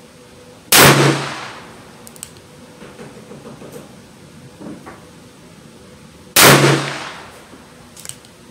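Two shots from a Taurus Tracker revolver firing .22 Magnum, about six seconds apart, each a sharp crack with a short echoing tail. A few faint clicks and pops fall between them.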